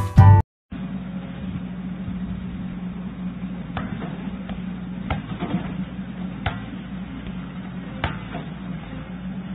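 Music cuts off half a second in; then an excavator's engine running steadily, with a sharp knock every second and a half or so as a football strikes the steel bucket.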